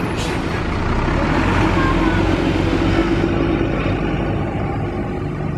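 Road traffic with a bus engine running close by, holding a steady note for a couple of seconds in the middle.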